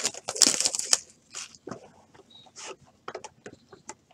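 Topps trading card box being torn open and its wrapped packs handled: a rustling tear in the first second, then scattered crinkles and taps of packaging.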